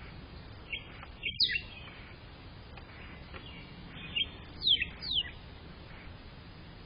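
Bird calling: a few short, sharp chirps that sweep quickly downward in pitch, in two clusters about a second in and again around four to five seconds in, over a steady low background rumble.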